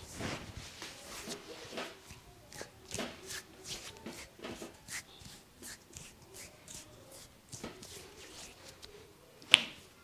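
Hands working over the head in an Indian barber's head massage: irregular sharp taps, slaps and finger snaps, about two a second, with one much louder sharp crack near the end.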